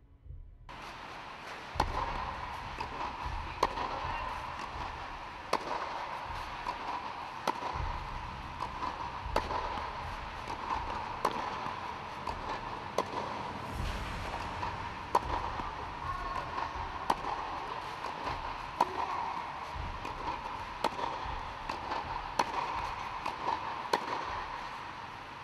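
Tennis balls struck with rackets in a quick volley exchange: sharp pops about once a second, every other one louder, over a steady background hum.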